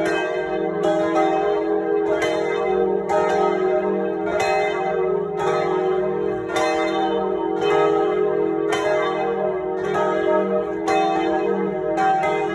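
Three swinging bronze church bells (about 1000, 750 and 500 kg) ringing together in a full peal, heard close up in the belfry. Their clappers strike in an uneven, overlapping rhythm over a continuous ringing hum.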